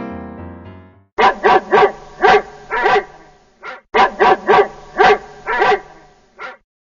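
Dog barking: a run of about six barks, then the same run again. A piano tune fades out in the first second.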